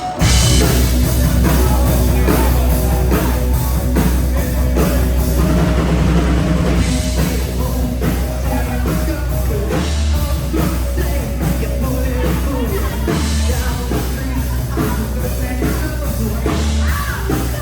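Loud rock music with drums, heavy bass and singing, starting suddenly.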